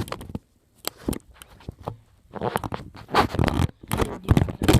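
Close handling noise: irregular scraping and rustling with a few sharp clicks as small objects are handled right by the microphone, louder in the second half.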